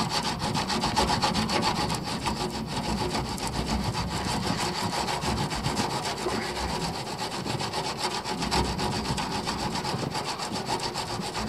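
A bar of laundry soap rubbed hard back and forth against the rusty underside of a steel fuel tank: a steady scraping made of rapid, even strokes. The soap is being smeared into a rust hole that is leaking petrol, to plug it.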